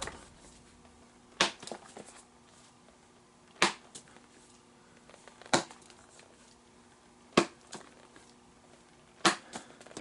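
A baseball popped by hand into the pocket of a leather Nike Diamond Pro J glove: five sharp pops about two seconds apart, each followed by a few softer taps.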